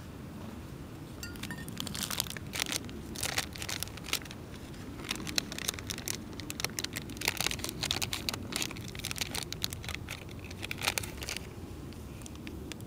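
Foil coffee packet crinkling and rustling in irregular bursts as it is handled and opened, from about a second and a half in until shortly before the end, over a low steady rumble.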